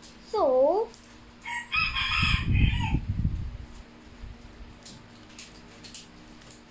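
A rooster crowing once, about a second and a half long, starting near two seconds in. Just before it comes a short call that dips and then rises in pitch.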